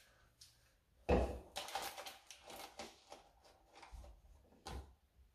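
Knocks, clicks and rustling from objects being handled on a kitchen counter. A sharp clatter about a second in is the loudest sound, followed by a run of quick rustles and clicks and two duller knocks near the end.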